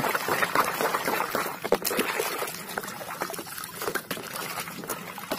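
Water splashing and sloshing in a plastic tub as a toy rifle is scrubbed and swished through it by hand. It comes in irregular splashes that ease off in the second half.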